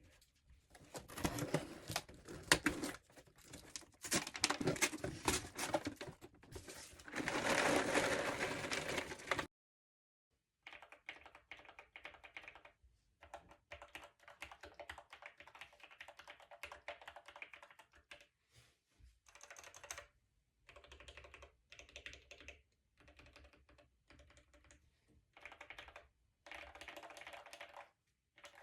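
Mechanical keyboard fitted with Gateron Milky Yellow linear switches being typed on in fast runs of keystrokes. The typing is louder for the first nine seconds or so, then after a brief gap continues more quietly in short runs with pauses.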